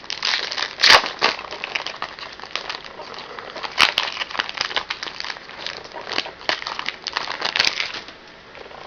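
Hockey card pack wrapper crinkling and crackling as it is torn open and handled, with a few sharper crackles about a second in and again near the middle; it eases off near the end.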